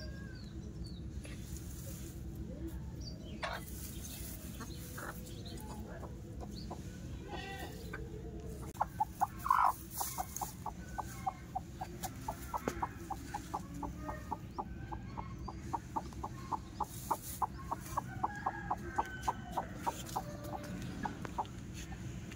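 Domestic hen clucking: from about nine seconds in, a quick run of short clucks, several a second, with one louder call near its start, over a steady low hum.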